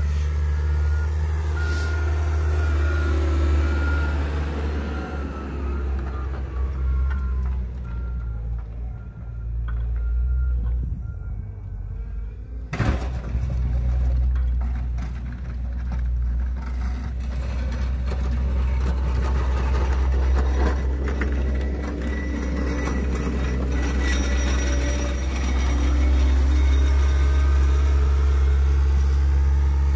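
Caterpillar 906 compact wheel loader's diesel engine running steadily as it works a Metal Pless snow pusher. Its reversing beeper sounds a string of even beeps through the first ten seconds or so. A single sharp knock about thirteen seconds in.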